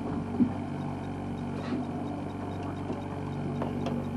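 Boat engine running steadily at low speed, a low even hum, with a short knock about half a second in.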